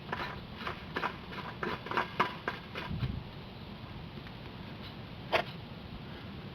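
Light clicks and taps of an oil filter being handled and fitted by hand. They come in a quick cluster for about the first three seconds, then one sharper click just past five seconds.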